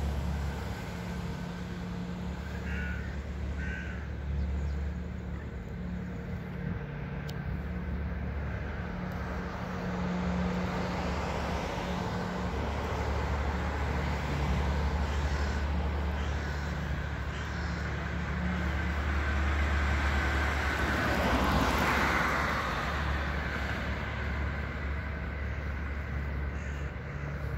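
Outdoor city ambience with a steady low traffic hum. Crows caw a few times, with two short calls about three and four seconds in. The noise swells louder around twenty seconds in and then fades.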